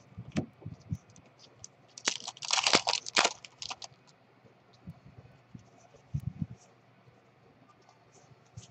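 Baseball cards being handled and shuffled by hand: light clicks and taps of card stock, a brief rustling scrape about two seconds in, and a couple of soft low thuds a few seconds later as cards are set down.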